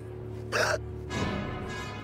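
Soft instrumental backing track with steady held notes before the vocal comes in, with a short breathy hiss about half a second in.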